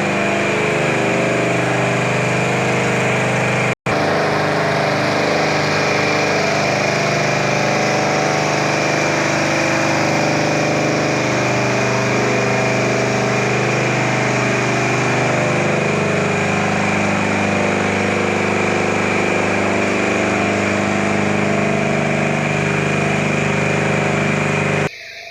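An engine running steadily at an even speed, with a momentary break about four seconds in and an abrupt stop just before the end.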